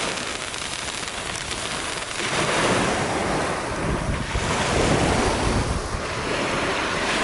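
Surf washing onto a beach, swelling and ebbing every couple of seconds, with wind rumbling on the microphone.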